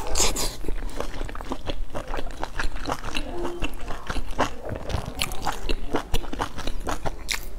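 Close-up eating sounds: biting into and chewing a pan-fried stuffed flatbread, a quick irregular run of small crunches and mouth clicks.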